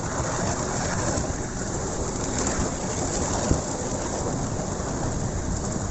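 Miniature railway train running along the track: a steady rumbling clatter of wheels on rails, with a sharper knock about three and a half seconds in.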